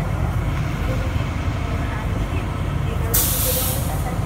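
Inside a Bombardier Innovia APM 100 light-rail car at a platform: a steady low hum of the car's equipment, then a sudden hiss of released air about three seconds in, lasting about a second.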